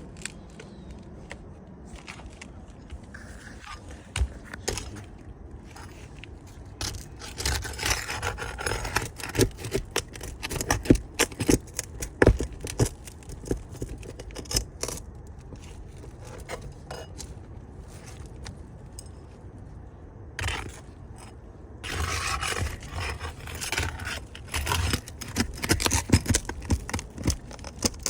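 Scraping and sharp clicks as asphalt shingles are pried up and worked loose to get at a damaged shingle for replacement. The noise comes in two busy stretches, with quieter pauses between them.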